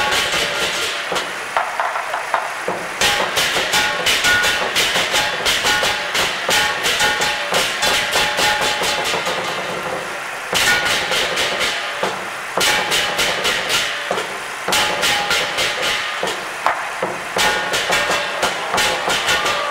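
Chinese lion dance percussion: hand cymbals clashing in a fast, steady rhythm with a metallic ringing, starting about three seconds in and breaking off briefly twice around the middle.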